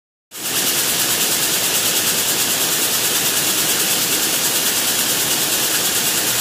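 Power loom weaving cotton gauze at full speed: a loud, steady, fast-beating mechanical clatter with a strong hiss, starting abruptly about a third of a second in.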